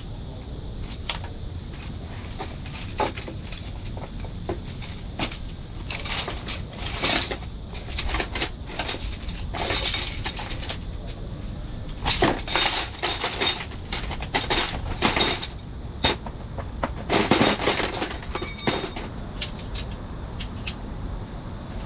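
Metal frame parts of a folding camp cot clinking and rattling in quick clusters as it is put together, over a steady low rumble.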